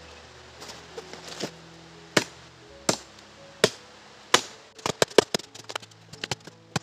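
A small dao (machete) chopping into hard wood on a tree trunk: four heavy strokes about three-quarters of a second apart, then a quicker run of lighter chops. Light rustling comes before the first stroke.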